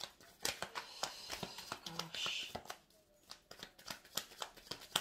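Tarot cards being shuffled and handled by hand: a run of quick, irregular papery clicks and flicks.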